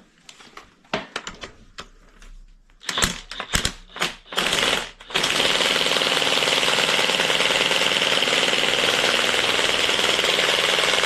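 A few clicks and clanks of a tool being fitted, then about five seconds in an impact wrench starts hammering rapidly and steadily on the crank pulley (harmonic balancer) bolt of an LS V8 engine.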